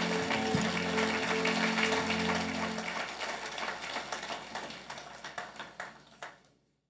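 Audience applauding over the held final chord of the song's accompaniment. The chord stops about three seconds in, and the clapping thins out and dies away near the end.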